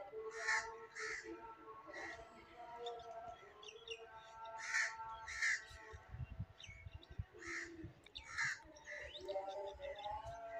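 Crows cawing, several calls in pairs about half a second apart.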